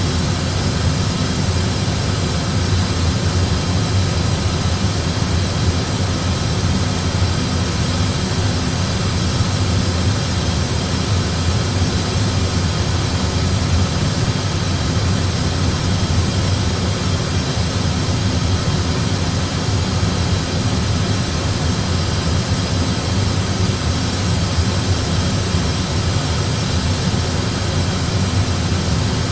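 Steady cockpit background noise of an Airbus A320 flight simulator: an even low rumble with a hiss over it, the simulated sound of the airliner's engines and airflow while it descends on autopilot.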